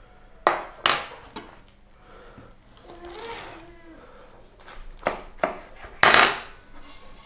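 Knife and fork clinking and knocking on a wooden cutting board while a roast chicken is carved, in a few separate knocks and scrapes. About six seconds in, a louder crunch comes as the knife cuts through the crisp skin at the leg joint.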